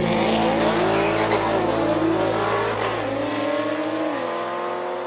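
A Nissan GT-R and a Chevrolet Camaro launching off a drag strip start line and accelerating flat out, engines revving up through the gears with a sharp drop in pitch at each upshift, about three seconds in and again a second later, getting slightly quieter as they pull away.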